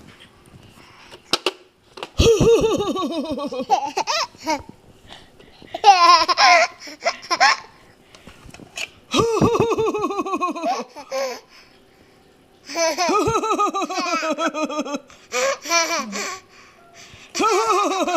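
A baby laughing hard in five fits, each a quick run of high-pitched laughs falling in pitch, with short pauses between the fits.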